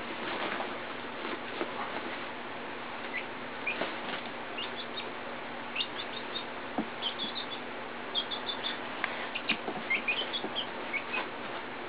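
Young Silkie chickens peeping: short, high cheeps, a few at a time at first and coming thick and fast in the second half, over a steady hiss.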